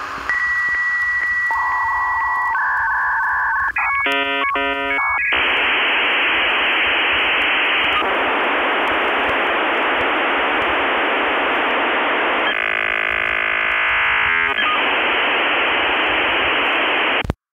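Dial-up modem handshake. A steady high answer tone is followed by a warbling tone and a rapid burst of chirps about four seconds in. Then comes a long harsh hiss of data noise that cuts off suddenly near the end.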